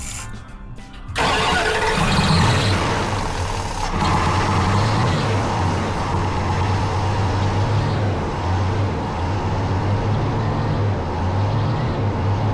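1990 Dodge Ram 150's throttle-body-injected engine catches about a second in and keeps running unevenly, getting louder again at about four seconds. The engine had been flooding with fuel from a leaking injector seal.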